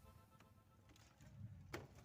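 Near silence: background music fades out, leaving a faint low rumble and a few small clicks, the sharpest near the end.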